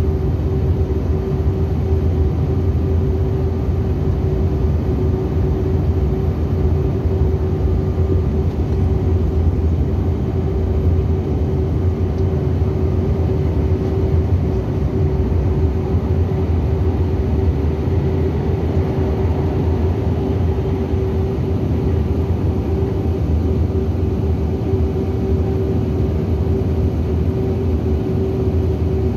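Cabin noise of a Bombardier CRJ900 in flight after takeoff: its rear-mounted GE CF34 turbofan engines and the airflow make a steady low rumble with a steady mid-pitched whine.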